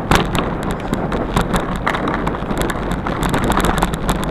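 Bicycle rolling fast over a rough, muddy trail: tyre rumble with frequent rattles and clicks from the bike over bumps, and wind buffeting the microphone.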